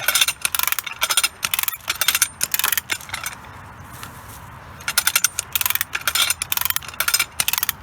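Metallic clicking and rattling in quick irregular runs, broken by a pause of about a second and a half midway, as a rope is hauled through a pulley to pull a wedged tree over.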